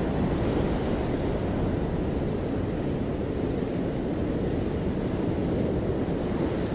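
Ocean surf washing onto a sandy beach: a steady, even rush of breaking waves, heaviest in the low range, with no single crash standing out.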